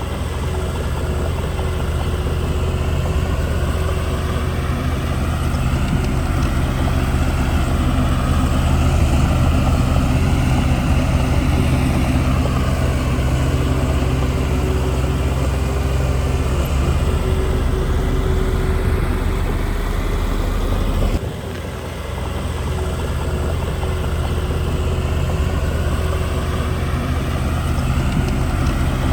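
Diesel engine of heavy earthmoving machinery running steadily. There is a brief dip and change in the sound about two-thirds of the way through.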